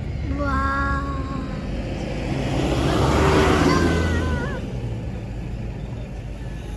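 Motor vehicle noise: a steady low engine rumble, with a car passing that swells to a peak about three seconds in and then fades.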